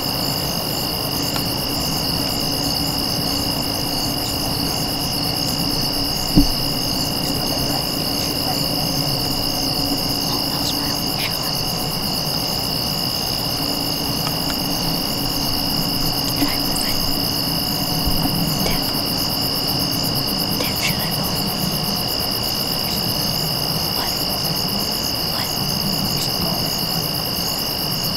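Steady chorus of crickets and other insects trilling, with one sharp click about six seconds in.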